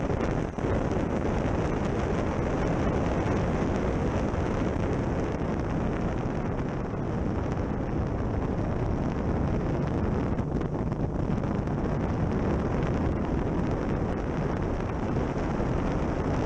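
Steady rush of wind over a car-mounted action camera at track speed, with the car's running and road noise underneath. There is a brief dip in level about half a second in.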